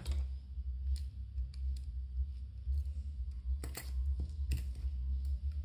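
A few sharp, separate clicks and taps of a small screwdriver and tiny screws being backed out of a metal lens mount, over a steady low hum.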